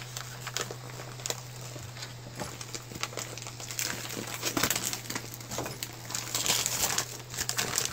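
Plastic vacuum-pack bag of a filament spool crinkling and crackling irregularly as it is handled and opened, over a steady low hum.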